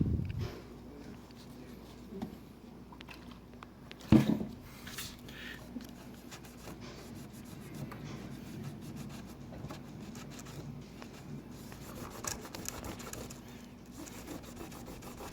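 Microfiber rag scrubbing old adhesive off an iPad mini's frame with acetone, a steady rubbing and scraping, with a sharp knock about four seconds in.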